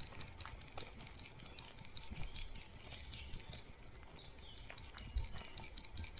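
A dog's paws trotting on a gravel road: a quick, irregular pattering of light crunches over a low rumble.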